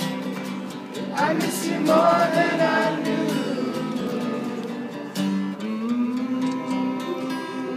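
Live acoustic guitar strumming the closing bars of a song, with a voice singing a wordless line over it.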